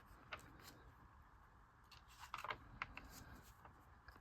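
Faint rustles and a few small clicks of paper comic-book pages being handled, mostly about two to three seconds in, over near-silent room tone.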